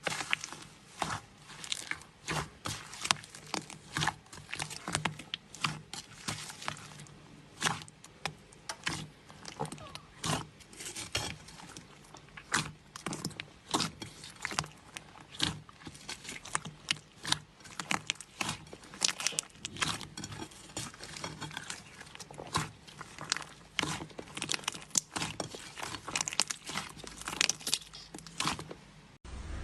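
Slime being squeezed, poked and pressed by hand: an irregular run of sticky clicks, pops and crackles, several a second.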